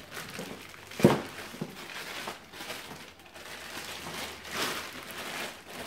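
Clear plastic packaging bag crinkling and rustling as parts are pulled out of it, with a sharp knock about a second in.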